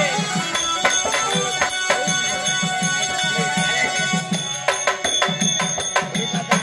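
Live folk-theatre stage music: hand drums keep a quick, steady beat with sharp strikes over held keyboard notes.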